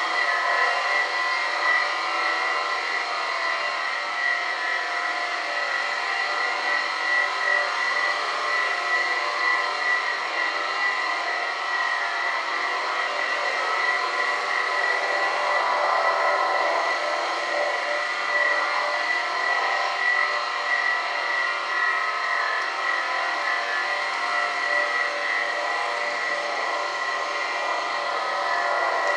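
Electric floor scrubbing machine running steadily as its pad spins on a wet hardwood floor: a constant motor whine with a high steady tone.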